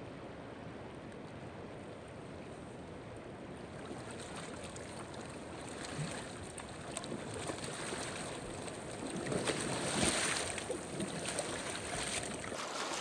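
Steady rush of a river current, with water swishing and splashing around a person's legs as they wade through it in waders, growing louder in the second half as the wader comes closer.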